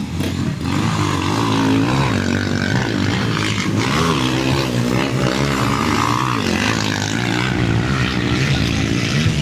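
Several Honda CG single-cylinder four-stroke motorcycle engines racing, their pitch rising and falling as the riders rev and shift.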